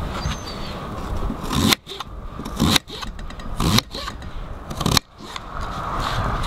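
A knife slicing through a raw turnip and hitting the cutting board, four cuts about a second apart, each a short building crunch that stops sharply.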